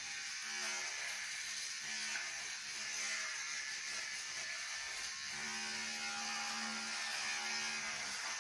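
Electric hair clippers buzzing steadily while being run through short hair.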